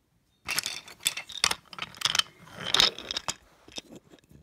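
Wooden toy trains and track clattering: an irregular run of clicks and rattling knocks as the engines are rolled and knocked about on wooden railway track.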